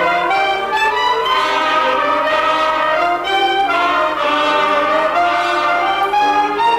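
Brass band music: trumpets and trombones playing a melody in a steady run of changing notes.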